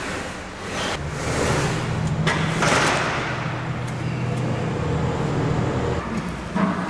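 A motor vehicle running: a steady low engine drone under road and traffic noise, with a swell of noise about two to three seconds in.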